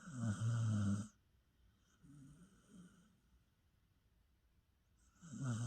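A dog snoring in its sleep: a loud snore in the first second, a fainter one about two seconds in, and another loud snore starting about five seconds in.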